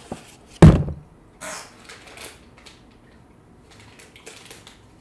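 One heavy thump on the desk less than a second in, as a paper plate is handled and put down, followed by a few softer rustles and small clicks.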